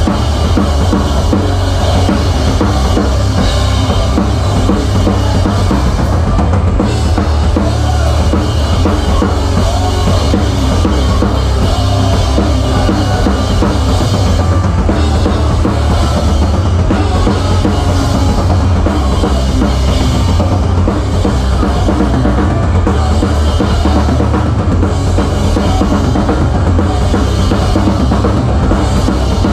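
Rock drum kit played live by a full band, heard close up from above the kit: kick drum, snare and Zildjian cymbals are loudest, over a dense, steady wall of low end from the rest of the band.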